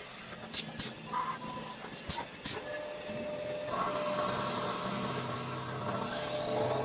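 CNC compound machine running while it machines copper valve parts: a steady motor hum and hiss with a few sharp clicks, growing a little louder about four seconds in.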